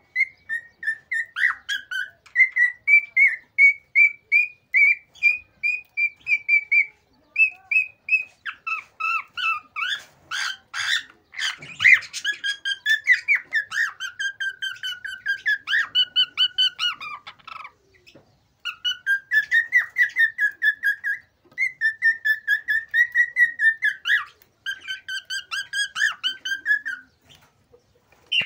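Male cockatiel singing its excited breeding song: long runs of rapid, repeated short whistled notes in phrases broken by brief pauses, with a louder stretch of rougher, harsher notes about ten to twelve seconds in.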